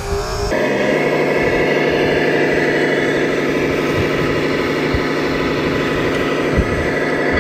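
Steady mechanical running of radio-controlled construction machinery: an even, engine-like drone with a faint high whine that sets in about half a second in.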